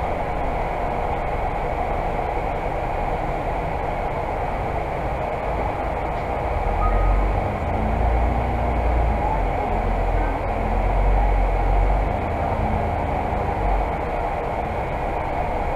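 Volvo Super Olympian 12 m double-decker bus heard on board while driving: steady diesel engine and road noise, with a heavier low rumble swelling about seven seconds in and easing off again near twelve seconds.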